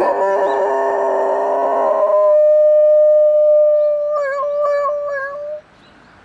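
A dog howling in imitation of an ambulance siren: one long, steady howl that wavers up and down near the end and stops abruptly. Several other tones overlap it for the first two seconds.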